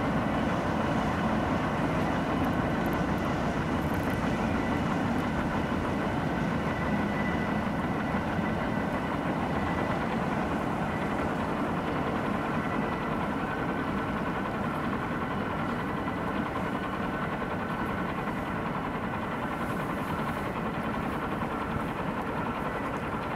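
Steady mechanical running noise, low and even, with faint steady whining tones above it, easing a little in level toward the end.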